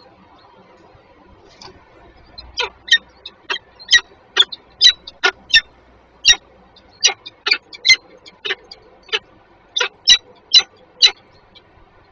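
Peregrine falcons calling during a food pass between the pair: a steady string of about eighteen short, sharp calls, roughly two a second, starting about two seconds in.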